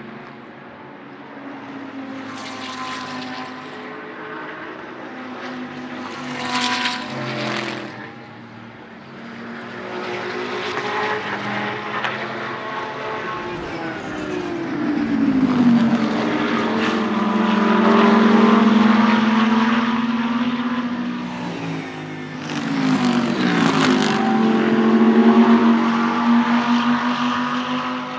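Race car engines as several GT endurance cars go past one after another. About halfway through, and again near the end, an engine note drops in pitch and then holds a steady note.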